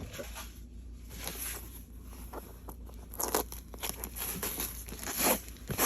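Packaging being torn open and handled: irregular crinkling and tearing, with louder rustles about three seconds in and again near the end.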